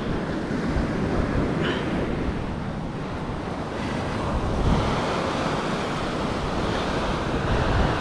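Surf washing onto a beach, with wind buffeting the microphone in a low rumble.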